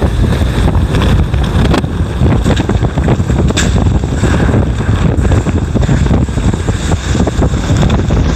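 Typhoon wind blowing hard and buffeting the microphone in a loud, continuous rumble, with a couple of brief sharp clicks or clatters.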